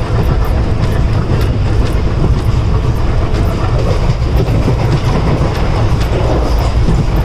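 Wheels of an ICF passenger coach running at speed over the track: a continuous loud rumble with short clicks of clickety-clack from the rail joints.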